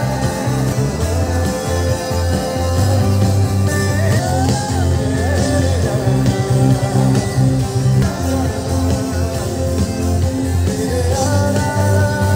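Amplified live band playing a song, with a wavering sung melody over strong, steady bass.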